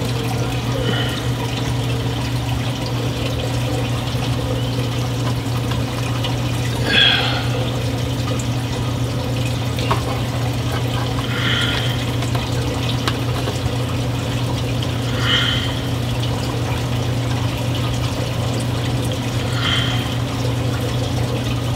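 Steady rush of water circulating through a reef aquarium sump, over a low, even hum from its pumps. A few brief higher-pitched sounds come about four seconds apart.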